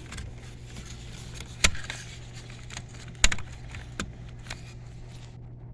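Plastic clicks of a 2014 Dodge Avenger master window switch and its wiring connectors being handled and unplugged: three sharp clicks with fainter ticks between them, over a steady low hum.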